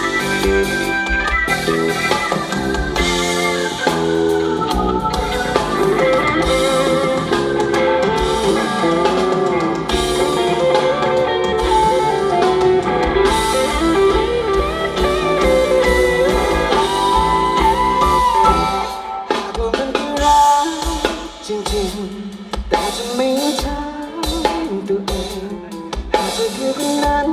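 Live band playing: drum kit and guitar, with a melody line that bends up and down in pitch. The band drops back to a quieter, sparser passage about two-thirds of the way through.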